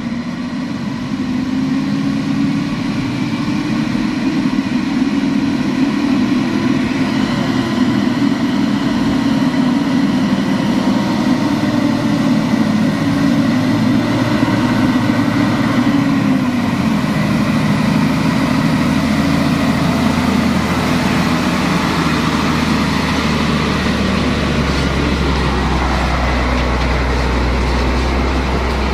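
Diesel engine of a heavily loaded Mitsubishi Fuso log truck pulling slowly over a soft, freshly filled dirt road, a steady engine note that grows louder over the first few seconds. Near the end, as the truck passes close by, a deep low rumble takes over.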